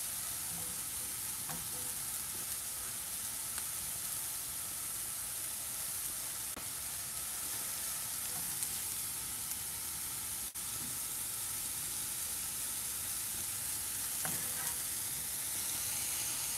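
Amanita villosa mushrooms dry-frying in nonstick pans with no oil, a steady high sizzle as their moisture cooks off. Small clicks and scrapes come in near the end as pieces are moved around in the pan.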